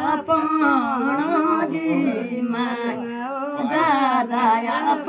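Women singing a ceremonial folk song together, unaccompanied, in a slow, wavering melody.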